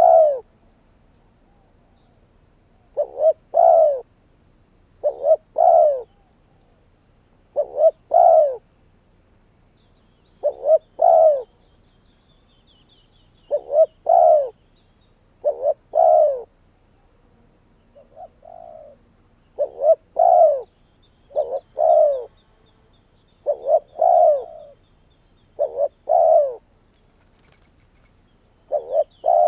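Spotted dove cooing: short phrases of a few quick notes ending in a longer coo, repeated every two to three seconds, with one softer phrase about halfway through. Faint high chirps of another bird come in around the middle.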